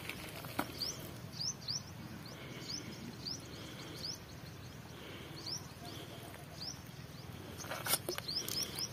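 A small bird chirping over and over, short rising chirps about once or twice a second, over a low steady background rumble. Near the end come two brief sharp noises.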